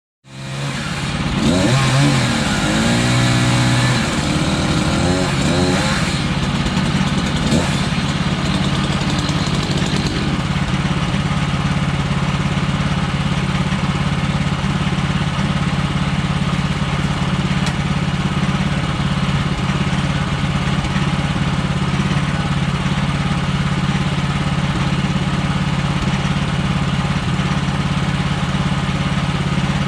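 Portable bandsaw sawmill's gas engine coming up to speed, its pitch rising over the first several seconds, then running steadily at high revs.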